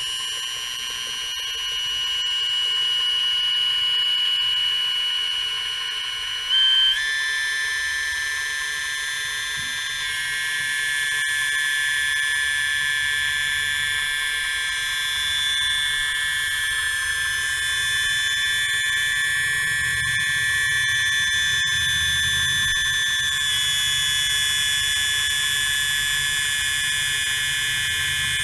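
Steady high-pitched tones, several sounding together, held without a break and stepping to new pitches a few times.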